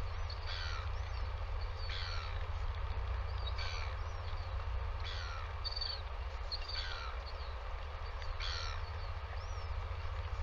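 A bird calling over and over, about once every one and a half seconds, each call a short note that slides downward, over a steady low rumble.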